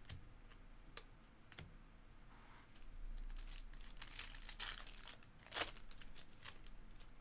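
A few light taps of cards being handled, then from about three seconds in a trading-card pack wrapper crinkling as it is torn open, with the sharpest tear about five and a half seconds in.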